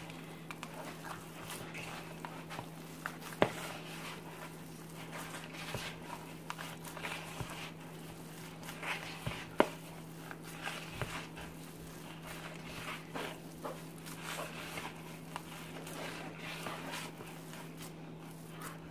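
Hands squishing and kneading a cold raw ground beef, oatmeal and egg mixture in a plastic bowl: soft, irregular squelches over a steady low hum, with two sharp clicks, about three seconds in and again near ten seconds.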